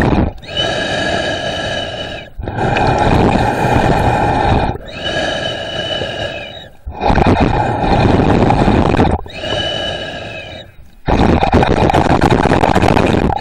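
Slow, heavy breathing through underwater breathing gear, heard underwater. A hissing phase with a whistling ring of several steady tones takes turns with a low noisy phase, each lasting about two seconds, over three full breaths.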